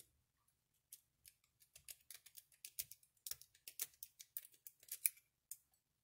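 A lock-picking city rake scrubbing in and out of the keyway of a cheap laminated steel pin-tumbler padlock under a tension wrench: a quick run of light metallic clicks and scrapes, about five a second, as it rattles over the pins.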